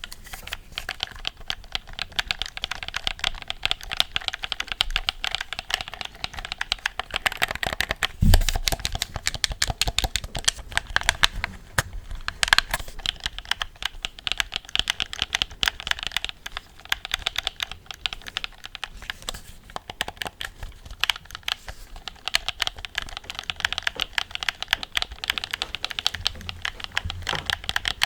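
Close-miked ASMR clicking: a dense, rapid, irregular patter of small sharp clicks and taps, typing-like. There is one low thump about eight seconds in.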